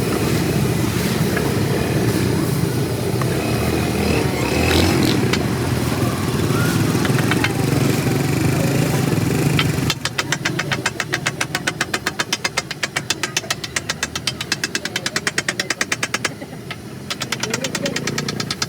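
Steady roadside traffic and engine noise with a few clicks. About halfway it gives way to a rapid, even clatter of a metal spatula striking a hot griddle, which pauses briefly and starts again near the end.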